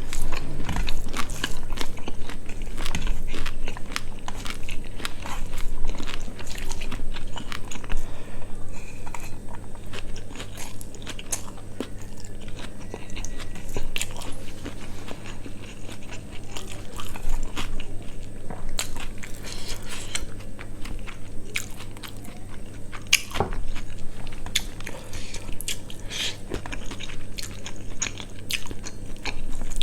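Close-miked chewing and biting of spicy quail kosha with rice, with frequent small, irregular crunches and mouth clicks, over a low steady hum.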